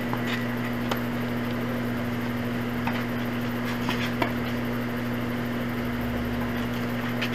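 Tennis ball struck by rackets and bouncing on the court: a few sharp knocks a second or two apart, the loudest about four seconds in, over a steady low hum.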